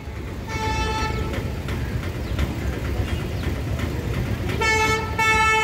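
The horn of an approaching train, sounding over a steady low rumble. There is a short blast about half a second in, then near the end a brief blast followed at once by a longer one.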